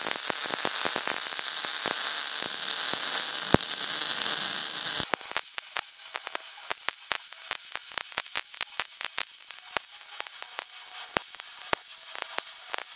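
Wire-feed (MIG) welding arc on steel, crackling and sizzling as the bead is laid. For about the first five seconds it is a loud, steady hissing crackle; then it drops to a quieter, sputtering crackle with many sharp pops.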